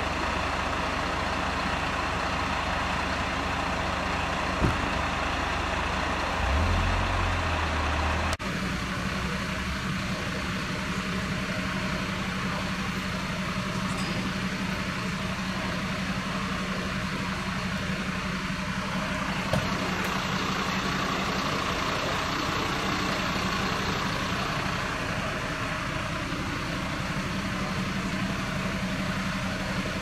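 Idling diesel engines of fire engines, a steady low running noise. About eight seconds in it cuts to another steady engine hum with a low drone.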